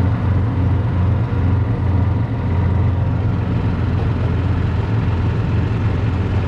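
A vehicle engine running steadily at an even speed while driving, heard from on board, with a steady low hum and no change in pitch or level.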